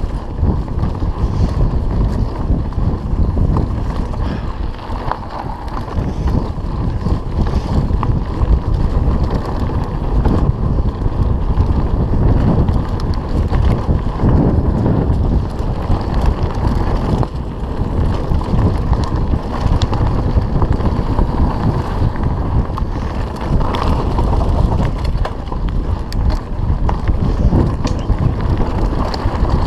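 Mountain bike descending fast over a rough dirt singletrack: constant wind noise on the microphone with the rumble of tyres on dirt and frequent rattles and clatters from the bike.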